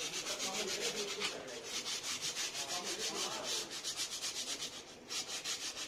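Maruti Eeco drum-brake shoe linings being rubbed down with fast, even back-and-forth scraping strokes, about five a second, to clean off caked brake dust. The strokes pause briefly about a second in and again near the end.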